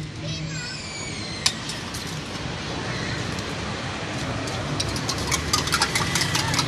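Quick, sharp metallic clinking of a utensil against a stainless-steel cup as a drink is prepared. It starts about four and a half seconds in, over steady background street noise, with one lone click a second and a half in.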